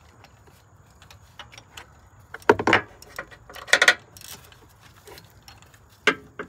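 Ratchet, extension and spark plug socket clicking and clinking against metal while a spark plug is being loosened. There are scattered light ticks, two louder clanks about two and a half and four seconds in, and another near the end.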